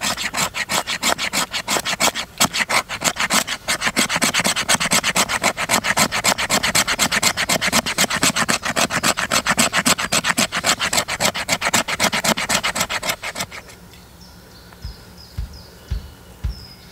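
Rapid, rhythmic rasping strokes of a hand tool on wood, about five a second, which stop about thirteen seconds in; a few faint knocks follow.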